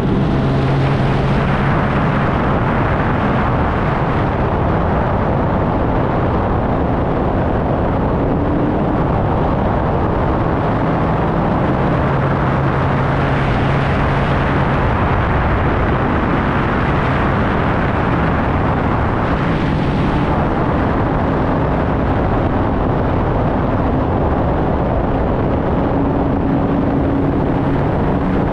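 Sea-Doo personal watercraft under way at a steady cruise: a loud, even rush of wind and water over a low engine hum that shifts a little in pitch now and then.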